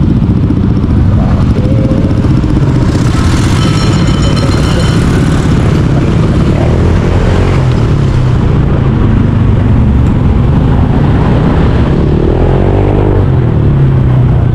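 Motorcycle engine running steadily on the road, with a brief high-pitched tone about three to five seconds in.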